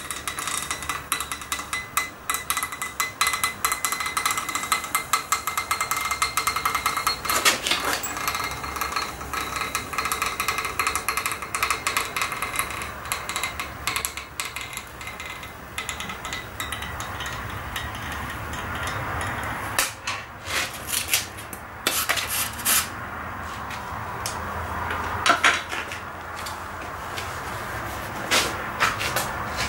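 Hand-held hot wire foam cutter working through foam, with dense crackling and clicking over a steady high whine that fades about halfway through.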